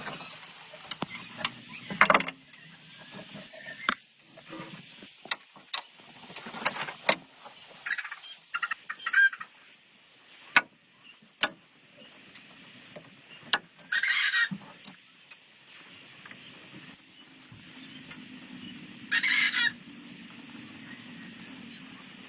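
Scattered sharp clicks and knocks of hand-tool work, with two short, loud chicken squawks, the first about two-thirds of the way in and the second near the end.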